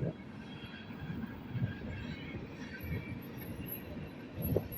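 Freight train rolling past at speed: a steady low rumble of wheels and cars on the rails, with a faint high thin whine in the second half.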